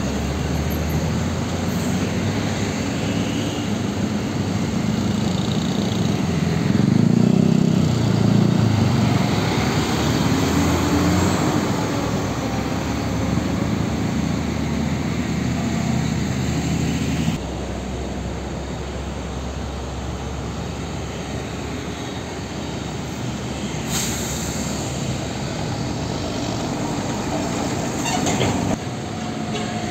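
Diesel engines of heavy tanker trucks running and moving in street traffic, with a louder engine pass about seven seconds in. The background changes abruptly a few times.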